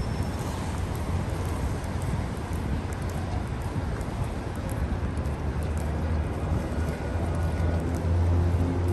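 Toronto subway train running: a steady rumble with a deep hum. Near the end a motor tone comes in and the sound grows a little louder.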